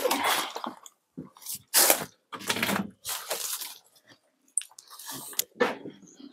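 Irregular crunching and scraping of debris under someone moving over rubble, in about six short separate bursts.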